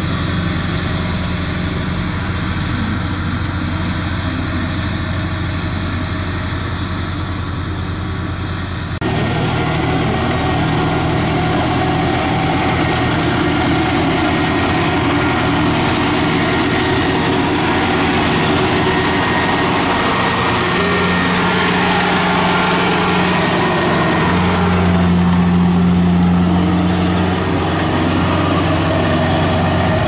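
Diesel engine of a Kubota DC-70 rice combine harvester running steadily under way. The sound changes abruptly about nine seconds in, and the engine is briefly louder a few seconds before the end.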